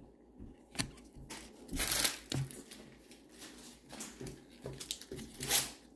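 Trading card packs and cards being handled: wrapper crinkling and cards rustling and flicking, with the loudest rustles about two seconds in and near the end.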